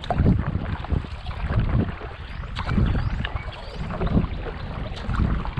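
Kayak paddle strokes pulling through flat water, about one a second, with wind buffeting the microphone.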